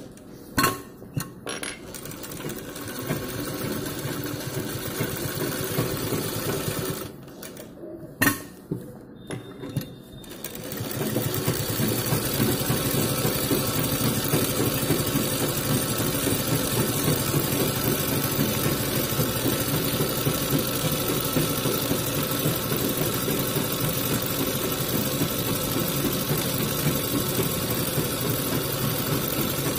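Sewing machine stitching through layered suit fabric at a steady speed. It stops for a few seconds about a third of the way in, with a few sharp clicks, then starts again about ten seconds in and runs steadily.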